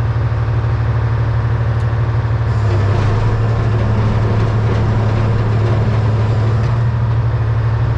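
Diesel engine of a 1978 Hein-Werner excavator running steadily while the machine is operated; about two and a half seconds in its note deepens and it gets a little louder as the load on it rises.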